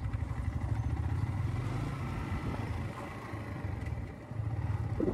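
Yamaha motorcycle engine running at low speed with a steady pulsing low rumble, easing off briefly about four seconds in.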